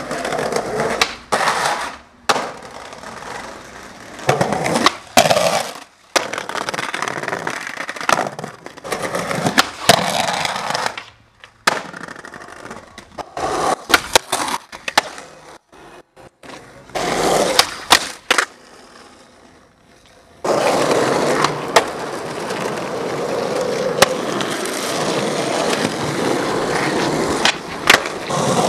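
Skateboard on concrete and asphalt: urethane wheels rolling, broken again and again by the sharp cracks of the tail popping and the board landing. In the second half a longer stretch of steady rolling with a few impacts.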